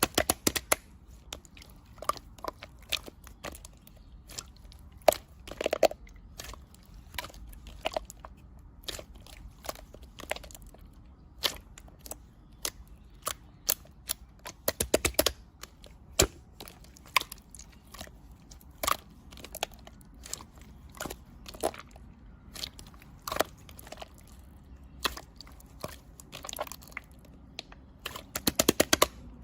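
Irregular crisp clicks and crunches, singly and in quick clusters, a few a second, over a faint low hum.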